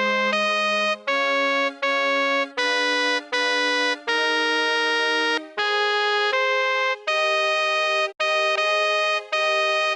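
Synthesized electronic tone playing the tenor line of a choral anthem as a part-learning track, one steady note after another, each starting abruptly with short breaks between, and an occasional lower note sounding beneath.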